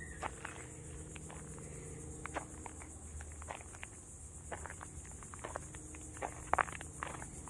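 Footsteps crunching on a gravel path, irregular and a little louder about six and a half seconds in, over a steady high-pitched insect chorus.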